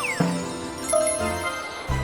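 Cartoon background music with held tones, opening with a quick falling-pitch sound effect.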